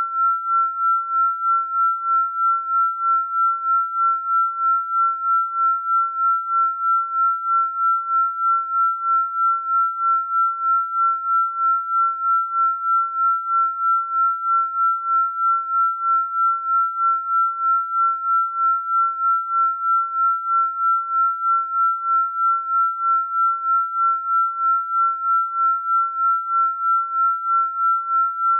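A single pure electronic sine tone, steady in pitch at about 1.3 kHz, pulsing evenly in loudness a few times a second: a 'healing frequency' tone of the binaural-beat kind.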